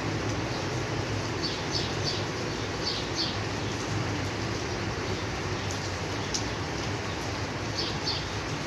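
Steady rain hiss, with a few short high chirps that often come in pairs, about a second and a half in, about three seconds in, and near the end.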